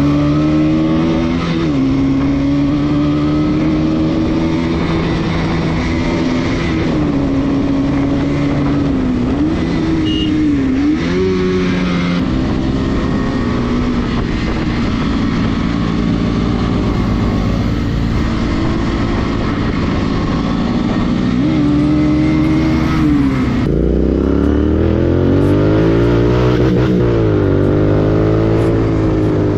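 Motorcycle engine heard from the rider's seat while riding, its pitch rising and falling with throttle and gear changes. About 24 seconds in the sound cuts to a different motorcycle revving up and down.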